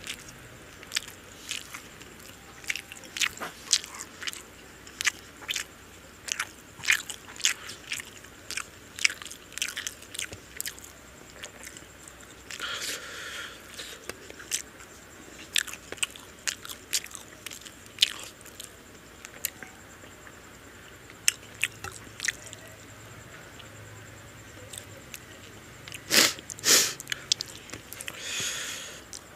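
Mouth sounds of a person eating mutton biryani by hand: wet chewing with many sharp lip smacks and clicks, about one or two a second. The loudest smacks come near the end.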